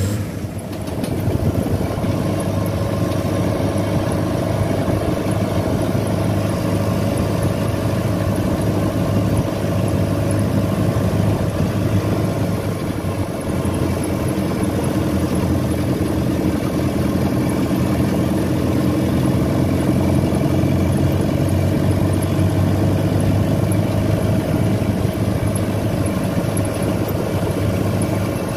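Engine of an open-top Willys jeep running steadily at an even speed while it drives along the road.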